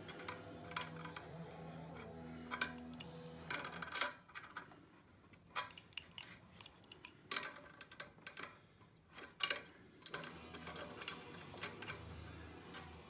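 Irregular light metallic clicks and taps as a stainless-steel pipe and its fitting nut are handled and threaded onto the head of an HPA compressor, with a spanner knocking against the metal now and then.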